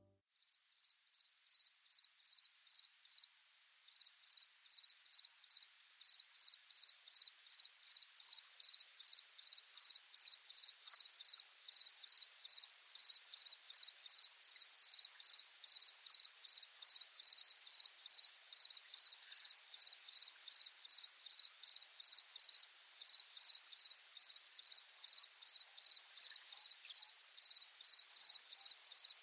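A cricket chirping steadily: a high, even chirp repeated about three times a second, with a brief pause a few seconds in.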